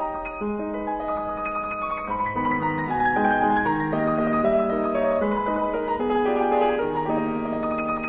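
Piano music: a flowing run of sustained notes over a lower accompaniment.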